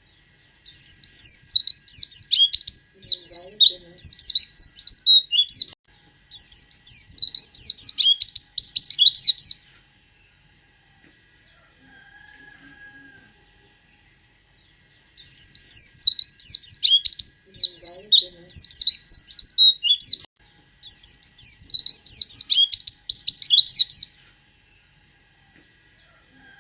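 White-eye (pleci) singing a fast, high twittering song laced with mimicked sooty-headed bulbul (kutilang) phrases. It comes in two runs of about nine seconds each, several phrases back to back, with a pause of about five seconds between them.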